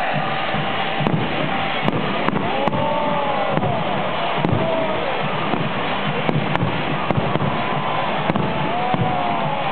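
Fireworks going off with a string of sharp cracks over a dense, steady stadium crowd din, and a few whistle-like tones that rise and fall about three seconds in and again near the end.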